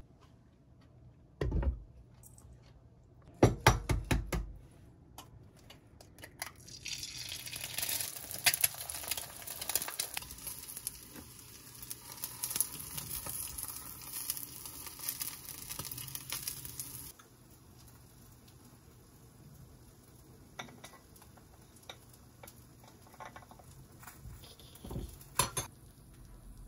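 Kitchen cooking sounds: a few knocks of cookware early, then food sizzling in a frying pan with utensils clattering and stirring for about ten seconds, cut off abruptly, followed by light scattered clinks.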